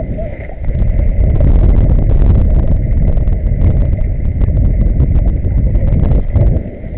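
Loud low rumble with scattered knocks on the microphone as the camera is handled and turned about. It starts about a second in and drops away near the end.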